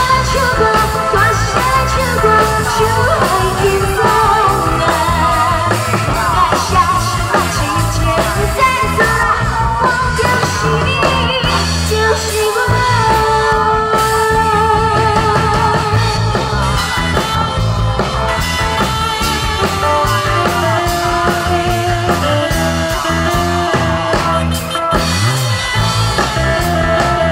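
A woman singing live into a handheld microphone over loud amplified backing music, with vibrato on her held notes.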